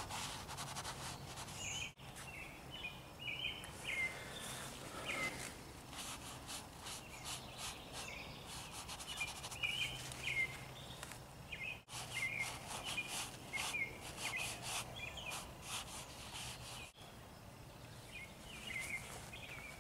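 Small birds chirping in short, repeated calls, with bursts of faint scratchy rustling and a low steady background hum.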